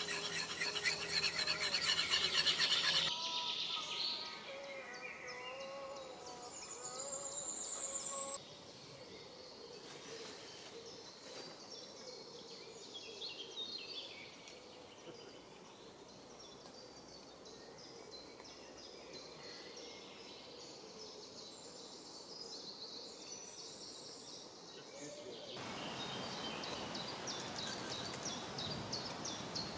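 Fast, even hand scraping of a tool worked over an axe head for about three seconds. Then a quiet forest with scattered bird chirps, and about 26 seconds in a steady hiss of rain starts.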